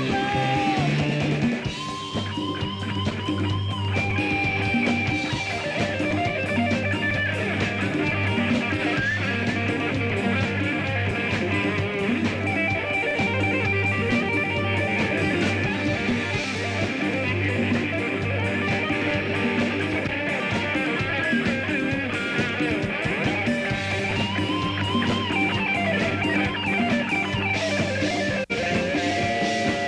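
A live band playing an instrumental passage of a disco medley, with electric guitar prominent over a drum kit.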